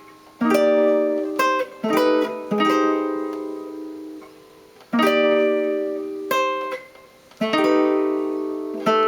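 Guitar playing jazz chord-melody: a few chords struck and left to ring out and fade, with shorter melody notes picked between them.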